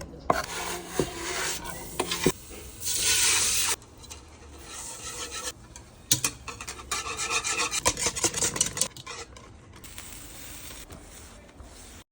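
Kitchen scraping and rubbing, harsh and irregular, with a louder stretch about three seconds in and a few sharp knocks.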